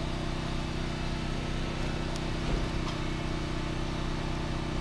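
An engine idling steadily, with a couple of faint clicks about halfway through.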